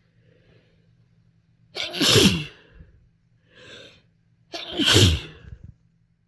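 A person sneezing twice: a faint breath in, a loud sneeze about two seconds in, a short intake of breath, then a second loud sneeze near five seconds.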